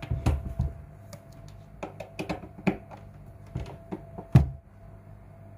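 Hands handling a closed suitcase-style turntable case: a series of light taps and knocks on the case, with one heavier thump a little over four seconds in.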